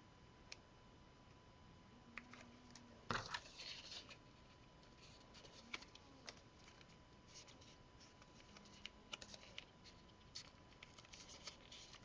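Faint rustling and light tapping of cardstock being handled, as a strip of black paper is wrapped around a small paper roof piece and pressed into place. There is one louder rustle about three seconds in and a run of small clicks near the end.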